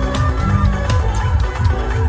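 Loud DJ dance music played over a large sound system, with heavy bass and a steady beat.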